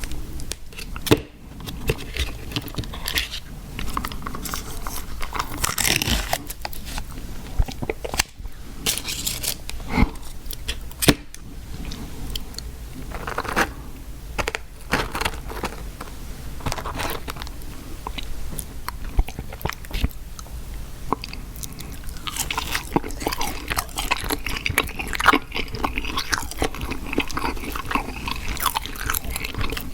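Close-miked chewing of fast food, wet mouth sounds with crunchy bites, sharp crunches scattered through.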